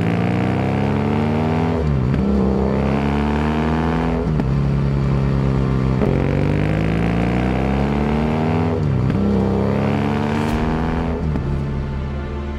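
A BMW GS adventure motorcycle's engine accelerating hard through the gears. Its pitch climbs steadily, then drops sharply at each of four upshifts.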